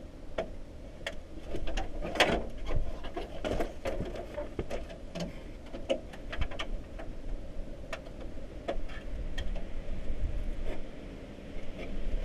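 Irregular plastic and sheet-metal clicks, taps and rattles as marker lights and a grille are snapped and worked into a pickup truck's front end by hand, busiest about two seconds in.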